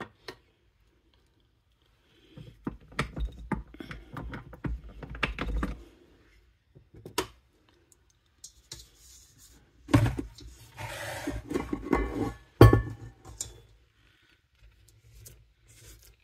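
Stainless steel stand-mixer bowl of bread dough being handled: a silicone spatula scraping and knocking against the bowl, then metal clanks as the bowl is worked off the mixer's base, the sharpest clank about three-quarters of the way through.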